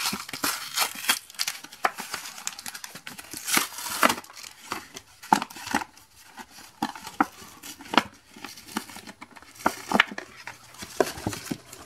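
Clear plastic blister and cardboard backing of a Pokémon TCG three-pack blister pack being torn open and peeled apart by hand: irregular crinkling and crackling of the stiff plastic, with sharp snaps as it tears.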